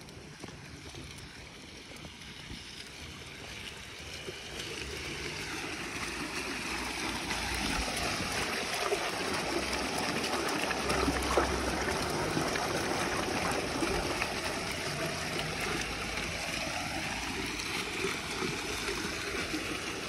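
Water running and splashing, gradually getting louder over the first several seconds and then holding steady: water being given to a dog to drink.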